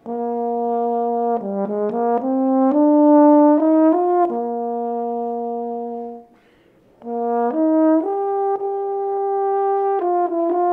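Solo euphonium playing a slow, smooth melody: a held low note, a run of rising notes and a long held note, then a short pause with a breath about six seconds in before a second phrase begins.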